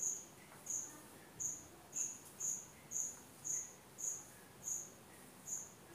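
A cricket chirping, short high chirps repeating about twice a second, with faint scratches of a marker drawing on chart paper.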